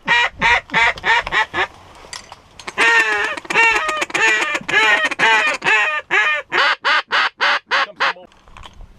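Mallard duck call blown close by: a short run of quacks, then after about a second's pause a long, fast run of loud quacks that tapers off near the end. It is a hunter's calling to a flock of incoming ducks.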